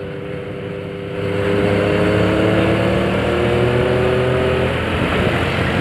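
Motorcycle engine pulling in gear, its note climbing slowly in pitch as it accelerates for a few seconds from about a second in, over a steady rush of noise.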